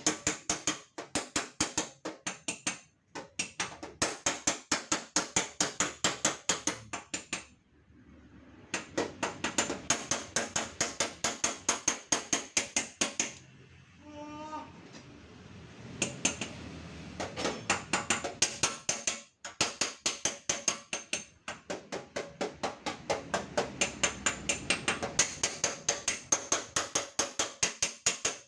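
Rapid hammer taps on a car's sheet-steel fender panel, several strikes a second with a metallic ring, in runs broken by short pauses: dent straightening of the panel.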